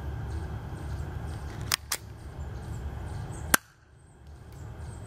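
Spring-powered plastic Colt 25 airsoft pistol being cocked and fired: two quick clicks a fraction of a second apart as the slide is racked, then a louder sharp snap of the shot about a second and a half later.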